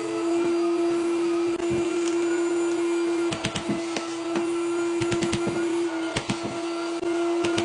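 An electric power tool running with a steady high hum, while short clicks and knocks come and go, most thickly about halfway through.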